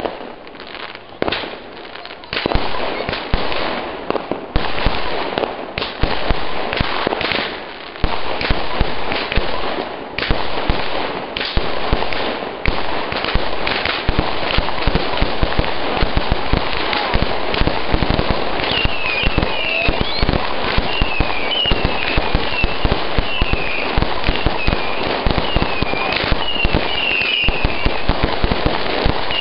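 Fireworks going off in rapid, dense succession: a constant crackle of bangs and pops that thickens about two seconds in. From about two-thirds of the way through, short whistles repeat about once a second over the crackle.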